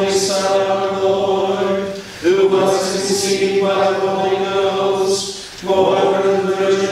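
A group of voices chanting on one held reciting note, men an octave below, in unaccompanied plainsong. The phrases break briefly about two seconds in and again about five and a half seconds in.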